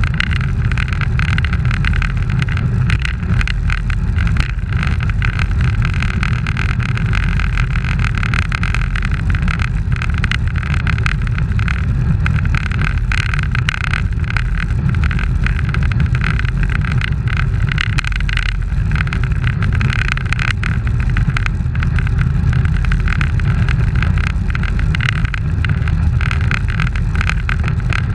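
Steady rushing wind on the microphone of a camera riding on a road bicycle at speed, with rumble from the tyres on the asphalt.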